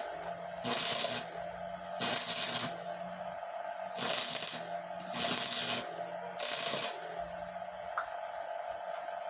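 Homemade stick welder built from a microwave-oven transformer, its arc struck again and again in short crackling hisses of under a second each, every second or two, with the transformer humming steadily between strikes.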